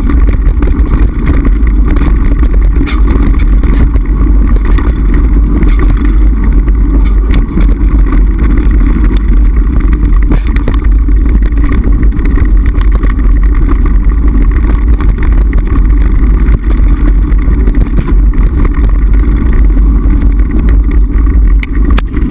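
Mountain bike rolling fast over a rough, stony track, heard through a handlebar-mounted action camera: a loud, steady rumble and rattle from the jolting ground, with small sharp knocks from stones and the bike throughout.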